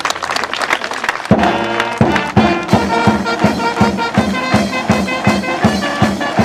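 Clapping, then about a second in a brass band starts playing music with a steady beat, the applause carrying on under it.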